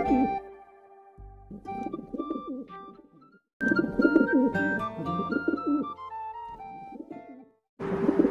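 Pigeons cooing in low, wavering coos, in three spells broken by short silences, over background music of held notes.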